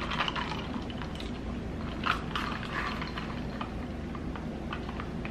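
Black milk tea with popping boba sucked up through a wide plastic straw in slurping bursts, one at the start and a louder one about two seconds in, with small clicks between, over a low steady hum.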